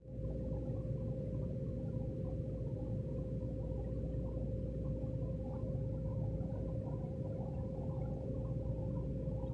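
Steady low rumble with one steady humming tone, the sound of a motor-driven room appliance running.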